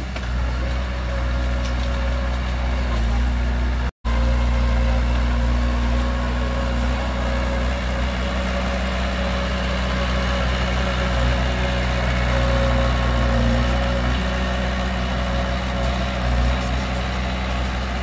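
Heavy diesel engine running steadily. The sound drops out for an instant about four seconds in.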